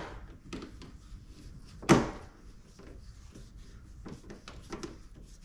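Small clicks and taps of a hand screwdriver driving a screw into a carbon fiber wheel well extension at the fender edge, with one sharper knock about two seconds in.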